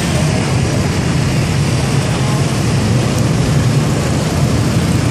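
Dense street traffic, mostly scooters and motorbikes, streaming past: a steady wash of many small engines running together, with no single vehicle standing out.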